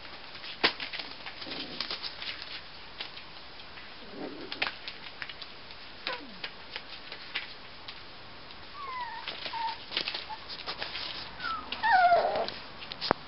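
Miniature schnauzer puppies moving about on newspaper: scattered light clicks and scuffs, with a few short high whimpers about nine seconds in and a louder whine near the end.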